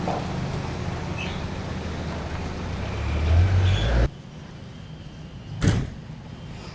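Street traffic: a vehicle's low engine rumble swells as it passes and cuts off abruptly about four seconds in. A single sharp click follows a little under two seconds later.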